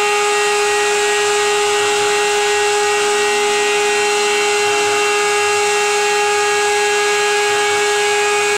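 CNC router spindle running at a steady high pitch while milling polystyrene sheet, over a steady rushing hiss from the vacuum dust extraction.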